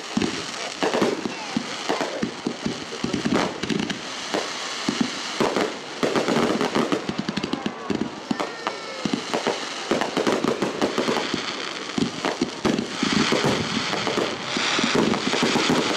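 Aerial fireworks display: shells bursting in a rapid, continuous string of bangs and crackles, with a few short whistles near the middle.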